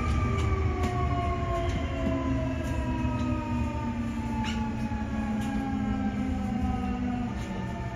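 Nankai 8300 series electric train running, its traction motor whine falling steadily in pitch as the train slows, over a steady low rumble of wheels on rail.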